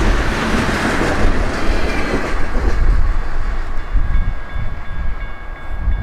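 Freight train of tank cars and a covered hopper rolling past, its wheels clattering over the rail joints. The noise fades once the last car has gone by, about two and a half seconds in, leaving a low rumble and a few faint, thin, steady high tones.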